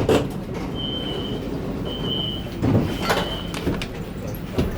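Dubai Tram's sliding doors opening at a station, with three short high beeps about a second apart and a few knocks from the door mechanism over the tram's low rumble.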